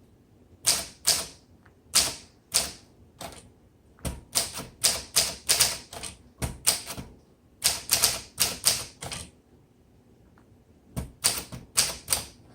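Keys of a 1941 Corona Sterling manual portable typewriter striking the platen, sharp clacks in uneven runs of typing with short pauses between words, starting just under a second in.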